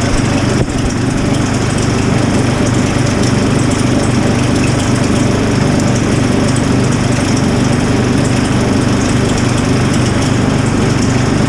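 Case IH Farmall 55 tractor's diesel engine running steadily in the cold, shortly after a cold start at 5 °F with its block heater used.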